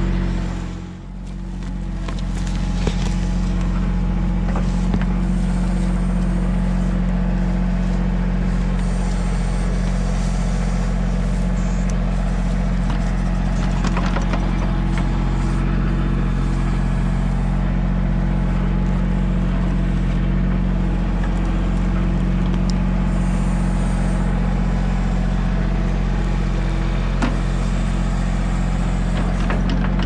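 Mahindra 1626 compact tractor's three-cylinder diesel engine running steadily while working the backhoe, with a few faint knocks. The sound dips briefly about a second in, then comes back.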